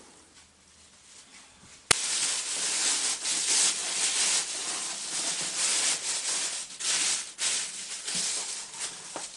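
A sharp click, then loud, uneven rustling and scraping that comes and goes in waves: things being handled close to the microphone.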